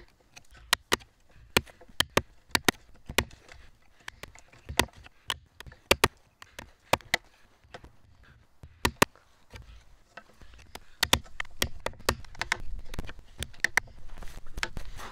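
A hammer striking a Japanese chisel as it chops a mortise into a softwood beam: sharp separate knocks in short bursts of two to four, with brief pauses between. A rougher scraping noise builds over the last few seconds.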